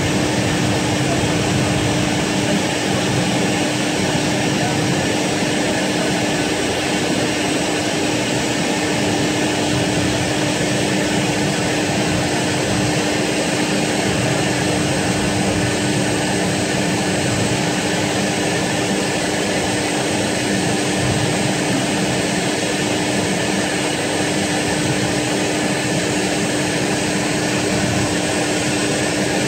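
A parked Fokker 100 airliner's turbine running steadily, an even hiss with a constant low hum that does not change.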